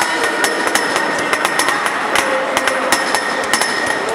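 Irregular sharp knocks and bangs, several a second, each ringing on in the echo of a large indoor sports hall.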